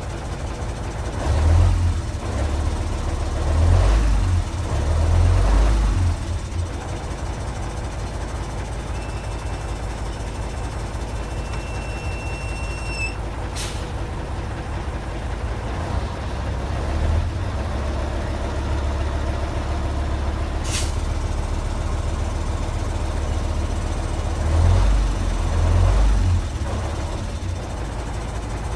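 Mercedes-Benz OM 403 V10 diesel engine idling, heard from inside the truck cab, briefly revved a few times near the start and again near the end. In the middle a faint whistle runs for a few seconds, followed by two short sharp clicks several seconds apart.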